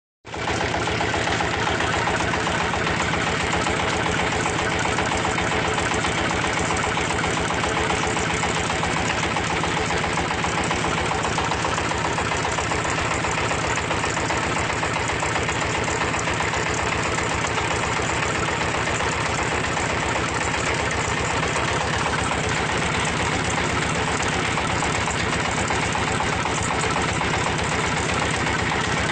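Red-brick moulding machine running steadily, its engine giving an even, rapid pulsing note that does not change.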